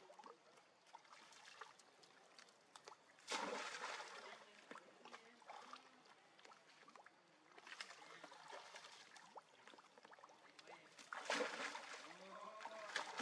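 Faint water splashing and sloshing in a pool, in three short bursts about four seconds apart.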